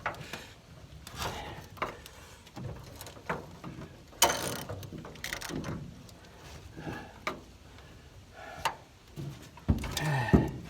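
Ratchet wrench clicking in short, uneven strokes as it turns a T55 Torx bit to back out a truck-bed bolt, with scraping and a few louder knocks of the tool against the bed.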